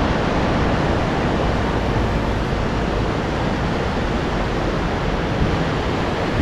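River Dee rushing over rocky rapids: a steady, loud rush of white water.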